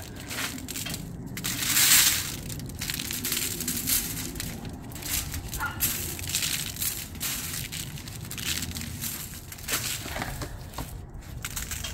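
Aluminium foil crinkling and rustling under a raw prime rib roast as gloved hands turn and rub it and seasoning is shaken onto it. The crackle is irregular, loudest about two seconds in.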